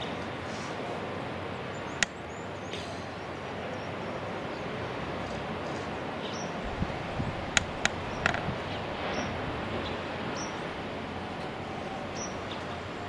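Steady outdoor ambient rush from a hilltop over the surf, with a few sharp clicks, one about two seconds in and a quick cluster of three a little past halfway, and several faint short high chirps.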